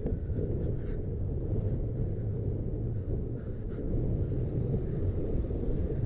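Wind buffeting the microphone during a ride, a steady low rumble with no clear tone.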